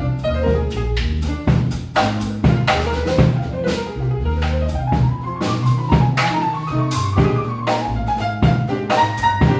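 Piano, bass and drum kit playing together, with frequent drum hits over moving piano and bass lines.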